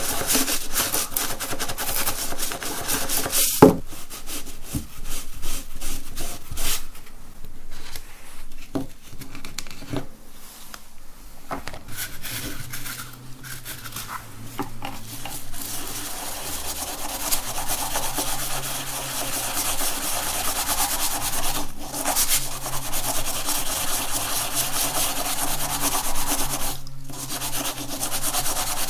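Toothbrush bristles scrubbing a coin in cleaning foam and paste, a rapid run of scratchy brushing strokes. A sharp click comes about three and a half seconds in, and the scrubbing goes quieter for a few seconds near the middle before picking up again.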